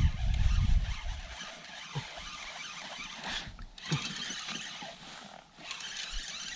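Wind buffeting the microphone with a rough low rumble that dies away after about a second and a half. After that there is faint outdoor noise with a couple of light knocks.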